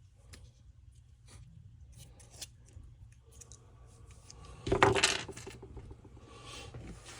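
Small metal parts and tools being handled, with scattered light clicks and a louder metallic clatter about five seconds in, then a short scrape.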